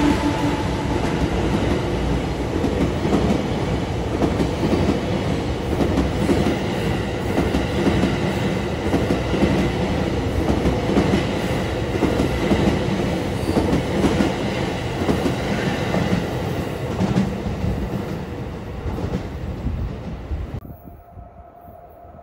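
New Tokyo Metro 17000 series cars being towed as a freight delivery, rolling past on their wheels with a steady rumble and clatter over the rails, easing off toward the end. The sound cuts off abruptly about 20 seconds in to a much quieter background.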